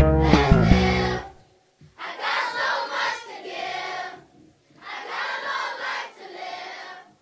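Hip-hop backing track with a heavy bass beat that cuts off about a second in. A choir then sings without accompaniment in two long phrases with a short pause between them.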